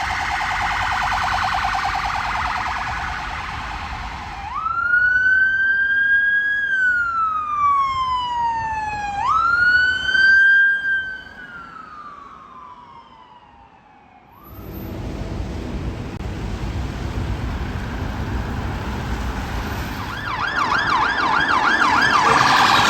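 UK emergency vehicle sirens. A fast warbling siren comes first. Then comes a wail that rises quickly and falls slowly, twice over. After that, with traffic noise underneath, a fast yelp siren sounds near the end.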